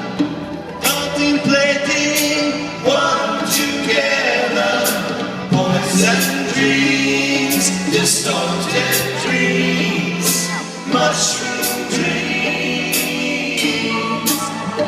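Psychedelic rock band playing live, with several voices singing together over sustained chords, drums and cymbal hits about once a second.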